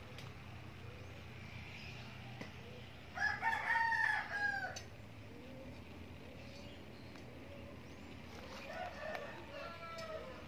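A rooster crowing: one clear crow of about two seconds a few seconds in, ending on a falling note, then a fainter crow near the end.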